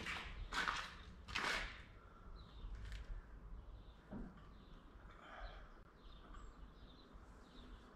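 Footsteps scuffing on a gritty barn floor, three in the first second and a half, then small birds chirping faintly.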